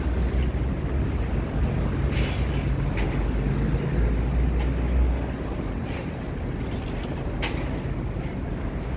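City street traffic: the low engine rumble of vehicles going by, which drops away about five seconds in, with a few brief clicks.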